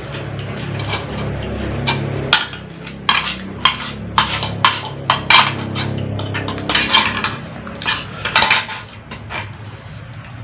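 Cutlery clinking and scraping against a plate during eating: a quick, irregular run of sharp clinks, about fifteen, that begins about two seconds in and stops near the end, over a faint low hum.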